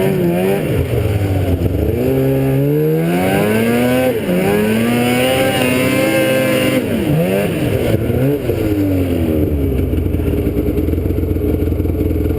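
Engine of a small motor vehicle being ridden, revving up and easing off several times with its pitch rising and falling, then running at a steady speed for the last few seconds.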